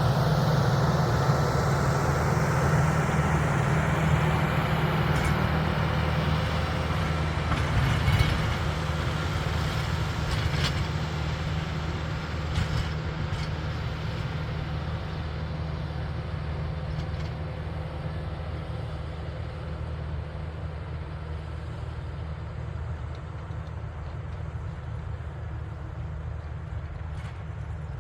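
Farm tractor engine running steadily with a low hum, slowly getting quieter, with a few faint knocks.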